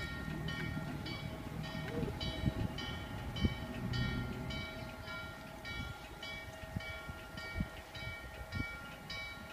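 Steam locomotive bell on N&W 611, a J-class 4-8-4, ringing steadily at about two strokes a second as the engine approaches slowly, over a low rumble from the train.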